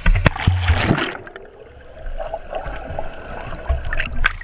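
Pool water splashing as an action camera is plunged under the surface, then a muffled, dull underwater sound of moving water, with splashing again as it comes back up near the end.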